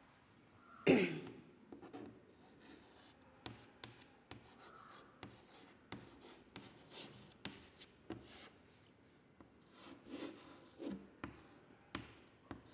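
Writing on a board: a series of short scratchy strokes and light taps as letters are written out, with one louder stroke about a second in.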